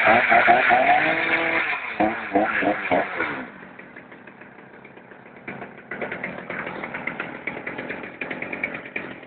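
Two-stroke chainsaw engine revving hard, its pitch dipping and rising again, then dropping back to quieter, rougher running about three and a half seconds in.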